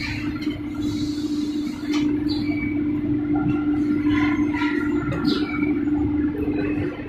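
Core veneer composer machine running: a steady motor and conveyor hum with scattered short squeaks and hisses from its moving parts. The hum stops right at the end.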